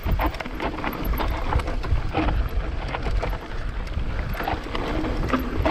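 A mountain bike running over a rough, bumpy trail: wind buffets the action camera's microphone, over a continuous clatter of knocks and rattles from the bike.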